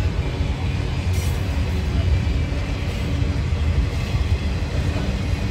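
A long freight train of autorack cars rolling past close by: a steady, heavy rumble of steel wheels on the rails.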